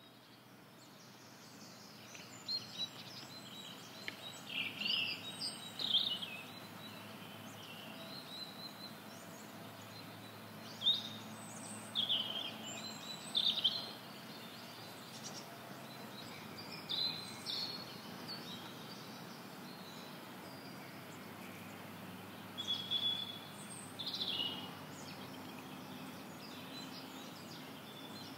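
Birds singing outdoors: short bursts of high chirps and song phrases every few seconds over a steady background hiss of open-air ambience, which fades in over the first couple of seconds.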